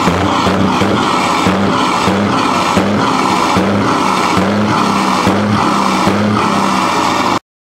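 Background music with a steady beat of about two a second and a shifting bassline, cutting off abruptly near the end.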